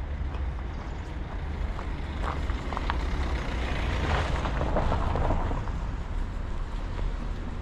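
A road vehicle passing by, its noise swelling to a peak about four to five seconds in and then fading, over a steady low rumble.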